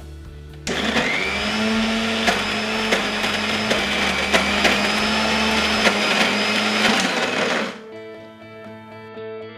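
Kitchen mixer grinder (mixie) motor running at speed, grinding the thumbai-flower chutney mixture with a little water sprinkled in; it starts about a second in and cuts off after about seven seconds.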